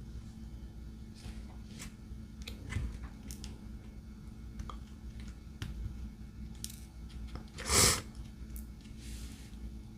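Light scattered taps and clicks of a diamond painting drill pen setting resin drills onto a sticky canvas, over a steady low hum. A louder brief rustle comes near the end.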